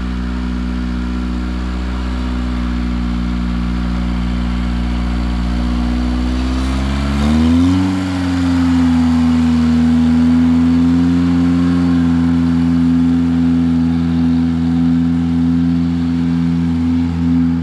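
Satoh S-550G tractor's four-cylinder gas engine running steadily; about seven seconds in it speeds up and then holds at the higher speed.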